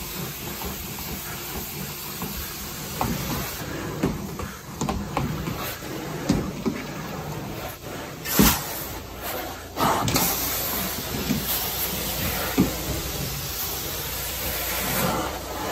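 Carpet-cleaning extraction wand worked over carpet: a steady hiss of spray and vacuum suction, broken by irregular short surges and a few louder rushes as the wand is pulled across the pile.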